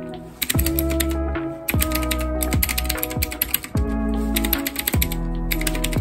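Fast typing on a typewriter-style gaming keyboard with round keycaps: rapid runs of clicking keystrokes that begin about half a second in and pause briefly around four seconds in. Background music with a heavy bass plays underneath.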